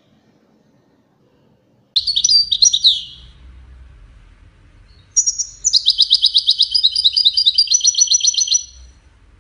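European goldfinch singing: a short burst of twittering phrases starts suddenly about two seconds in. After a brief pause comes a longer song of rapid trilled notes, about eight a second, which stops near the end.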